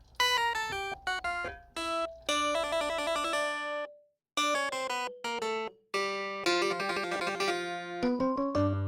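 Background music: a light tune of short, separate notes, with two brief drops to silence about four and six seconds in.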